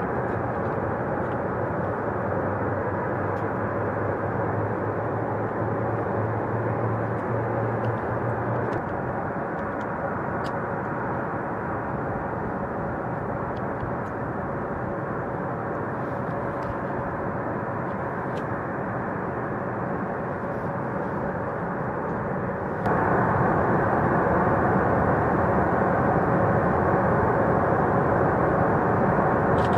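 Distant military jet engines running on the airfield: a steady rush with a held whine in it. It suddenly gets louder about two-thirds of the way through.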